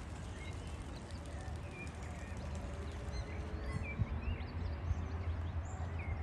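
Small birds chirping in short, scattered high calls over a steady low rumble.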